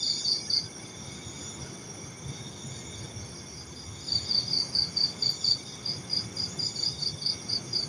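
Crickets chirping in quick, even pulses, about four a second, over a fainter steady insect trill; the chirping stops after the first half second and starts again about four seconds in.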